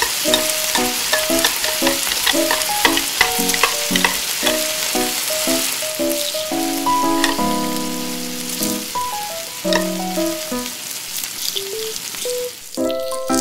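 Sauce sizzling in a tiny metal pot, with the small clicks and scrapes of a metal spoon stirring it, over light background music of short plucked notes. The sizzle fades out near the end.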